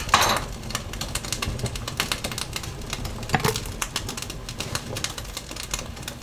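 Onion pieces dropped by hand into a blender jar onto chopped peppers, a run of light clicks and taps with a louder clatter at the start and a sharp knock about three and a half seconds in.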